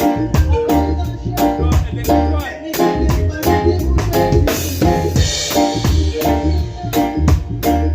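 Reggae music with a heavy bass line and a drum kit keeping an even beat, with repeated chord stabs over it. There is a brief crash near the middle.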